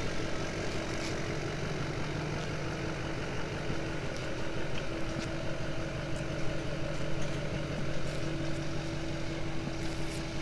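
Pickup truck engine running at low revs while slowly reversing a travel trailer, a steady hum with a few faint clicks.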